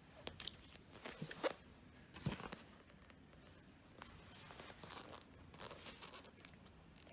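Pages of a thick photo album being turned by hand: a few short paper rustles and flaps. The loudest come about a second and a half and two and a half seconds in.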